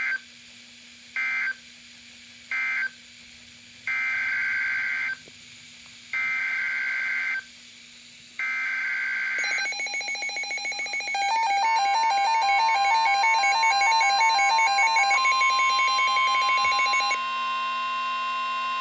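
NOAA Weather Radio EAS/SAME data tones. First come three short buzzy data bursts: the end-of-message code closing the previous warning. Then three longer bursts carry the digital header of a new tornado warning. After that, electronic alert tones pulse for several seconds and give way, about two-thirds of the way in, to a steady weather-radio warning alarm tone.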